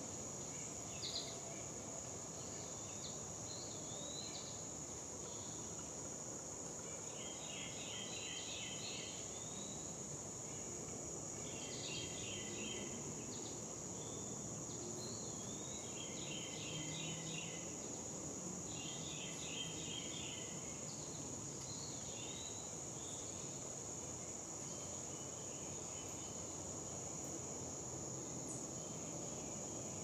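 A steady, high-pitched insect chorus drones without a break, while a songbird sings short phrases of quickly repeated notes several times, spaced a few seconds apart.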